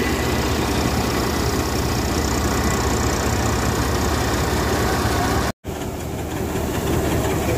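An engine running steadily at constant speed, a low hum under dense mechanical noise. The sound cuts out for a split second a little over halfway through, then carries on slightly quieter.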